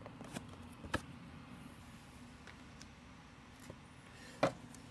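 Quiet handling of trading cards and foil card packs on a table: a couple of short taps, one about a second in and a sharper one near the end.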